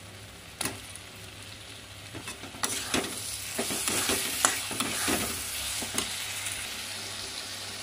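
Chopped tomatoes sizzling as they fry in hot spiced onion masala in a metal kadhai, with a spatula scraping and knocking against the pan as it stirs them in. The frying gets louder about two and a half seconds in, and the spatula knocks come every second or so after that.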